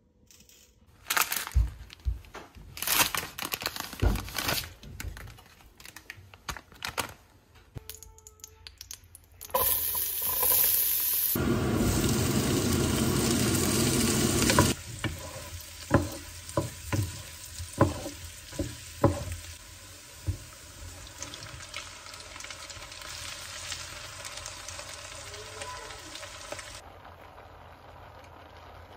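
Kitchen clatter of knocks and clicks, then diced meat sizzling loudly in a hot pot. A wooden spatula taps and scrapes as it stirs, over a quieter continuing sizzle.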